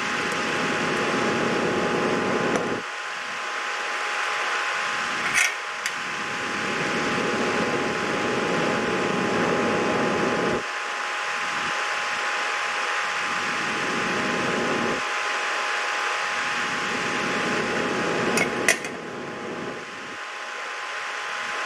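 Steady mechanical hum with a faint constant whine, over a rougher rubbing noise that comes and goes in stretches of several seconds, and two sharp clicks, one about five seconds in and one near the end.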